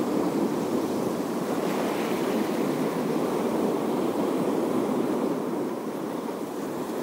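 Sea waves washing against a rocky shore in a steady, unbroken wash.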